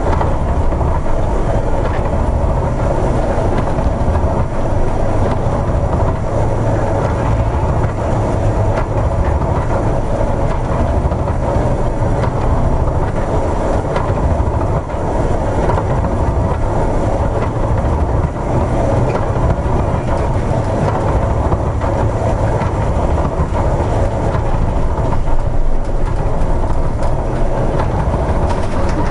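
Steady, loud rumble aboard a cargo ship ploughing through storm seas: the ship's running noise mixed with wind and breaking waves, with light rattling through it.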